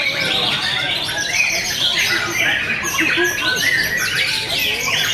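White-rumped shama (murai batu) singing a fast, varied run of whistles and chirps without a break, with other songbirds singing over it.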